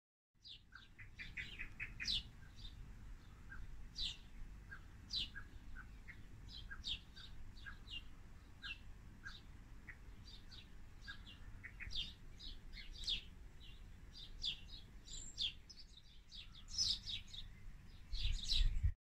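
Small birds chirping, a steady stream of short, high notes, mostly falling in pitch, over a low rumble that grows louder near the end.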